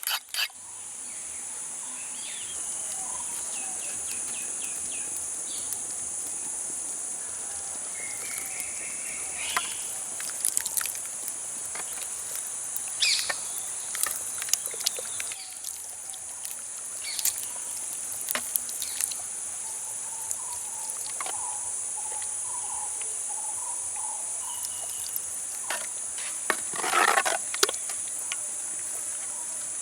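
Steady high-pitched insect chorus, with scattered short bird chirps and a few clicks over it. A brief louder burst of noise comes near the end.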